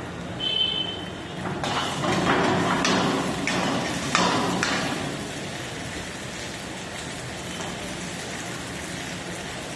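Steel ladle clanking against a steel wok while stir-frying, about seven knocks in quick succession, over a steady hiss of sizzling food. A brief metallic ring sounds just before the knocks.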